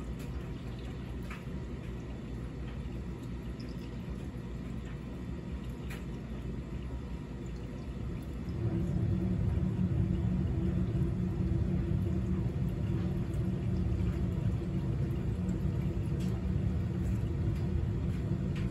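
A steady low mechanical hum and rumble that steps up clearly louder about eight and a half seconds in, with a few faint light clicks.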